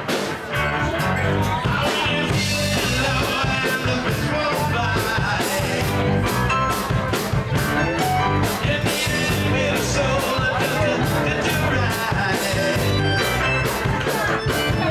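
Live rock and roll band playing, with electric guitar, bass and a steady drum beat, and a voice singing from about two seconds in.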